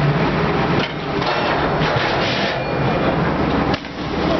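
Freefall lifeboat released and sliding down its launch ramp: a dense, noisy rush that cuts off abruptly near the end.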